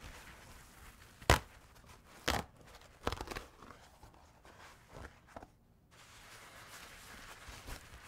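Roll of paper towel being handled and unrolled: soft rustling of the paper broken by a few sharp crackles. The loudest comes about a second in, another a second later, and a quick cluster at about three seconds. Smaller ones follow near five seconds and near the end.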